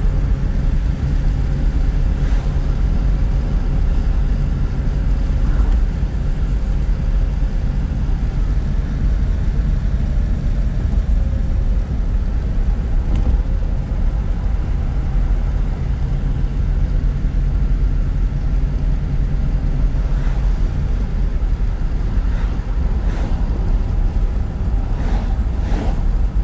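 1976 Chevrolet Camaro driving at a steady cruise, heard from inside the cabin: a steady low engine and road rumble. The car is running smoothly with no odd noises.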